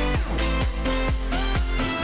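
Electronic dance music with a steady kick-drum beat.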